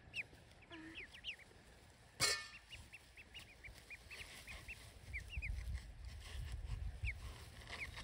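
Ducklings peeping: a steady scatter of short, high peeps. One sharp clink about two seconds in.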